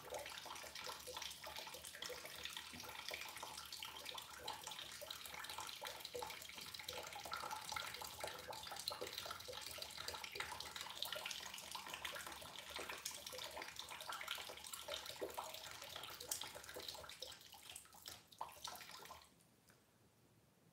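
Water running steadily with fine crackling and gurgling, fading and stopping about nineteen seconds in as the flow gets stuck.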